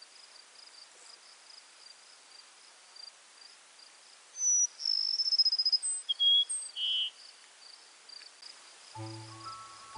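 A bird sings a short phrase of high whistled notes and a rapid trill about four seconds in, over steady high insect chirping at about three chirps a second. Soft music comes in near the end.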